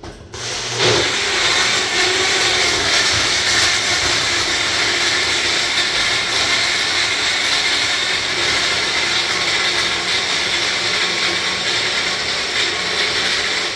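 Personal bullet-style blender motor running as the cup is pressed down on the base, blending watermelon pieces, spinach, ice cubes and water. It starts under a second in and runs at a steady, loud pitch throughout.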